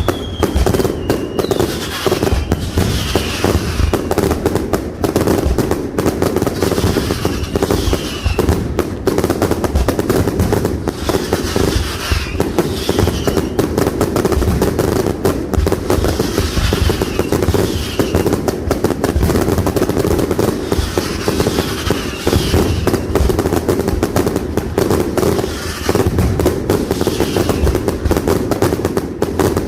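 Fireworks display: a dense, continuous barrage of bangs and crackling shells, with short falling whistles coming in pairs every few seconds.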